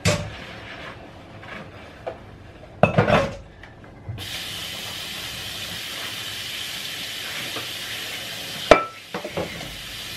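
Kitchen utensils clattering twice, then a hot pan starts sizzling with frying food about four seconds in and keeps a steady hiss, with a sharp clank near the end.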